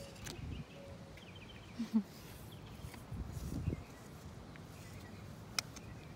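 Outdoor quiet with faint bird chirps and a few short, low puffs and rustles close to the microphone, the loudest about two seconds in and another just after three seconds, plus a single sharp click near the end.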